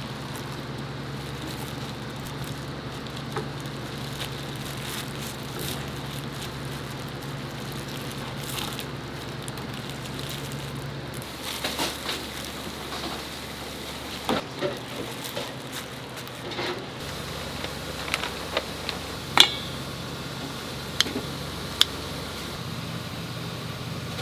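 Snack-shop kitchen ambience: a steady hum under a crackling hiss, with scattered sharp clicks and knocks in the second half, the loudest about two-thirds of the way in.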